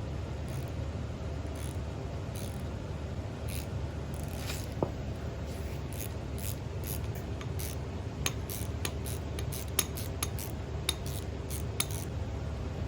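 Small metal clicks and scrapes of hand tools working on an axle's hub selectors, coming more often in the second half, over a steady low hum.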